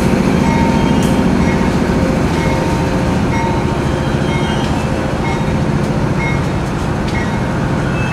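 Stubsill longitudinal-door hopper cars rolling past on the rails: a steady heavy rumble of wheels and trucks, with brief high-pitched squeals now and then.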